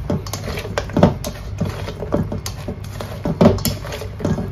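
A spoon stirring mayonnaise-coated tofu cubes in a stainless-steel bowl: irregular scrapes and clacks against the bowl with wet squelching. A steady low hum runs underneath.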